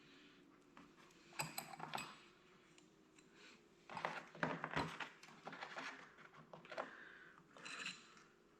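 Small metal parts and hand tools clinking and knocking during the teardown of a tractor's hydraulic pump and control valve. The sounds come in a few short clusters of light taps.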